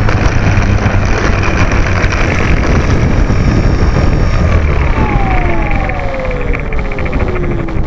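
Multiplex FunCub's electric motor and propeller heard from a camera on the plane's nose, over a loud steady rumble. About halfway through, the motor's whine falls steadily in pitch as it is throttled back, and a fast regular ticking comes in near the end.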